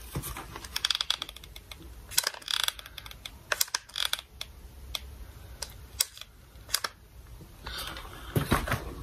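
Irregular light clicks and taps as a hot glue gun and a small foam craft tree are handled while glue is put on the tree's base, with a heavier knock near the end.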